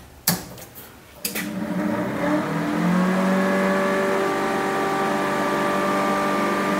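The plasma cutting setup is switched on with a click, and about a second in an electric motor starts. It runs up in pitch over the next couple of seconds, then runs with a steady hum.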